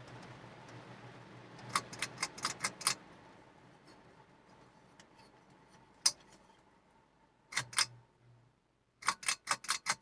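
Hunter Coastal Breeze Plus ceiling fan's motor hum and air noise slowly dying away as the fan coasts down. Over it come quick clusters of sharp clicks and a light rattle, like the fan's pull chain being worked: about five clicks a couple of seconds in, a few single ones, and a run of about six near the end.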